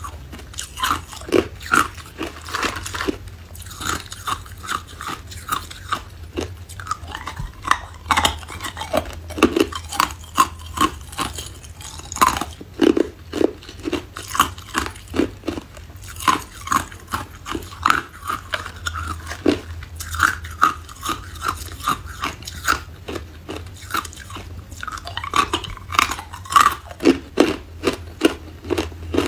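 A person crunching and chewing hard ice close to the microphone, a steady run of sharp crunches about two a second.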